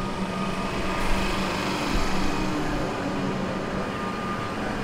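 Melbourne suburban electric multiple-unit train rolling along the platform. Steady running noise with a low hum and a faint higher whine from the train's equipment.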